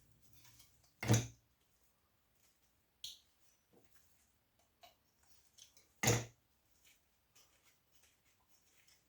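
Pieces of scrap brass and steel being handled: two heavy knocks about five seconds apart, about a second in and near six seconds, with lighter clicks and taps between.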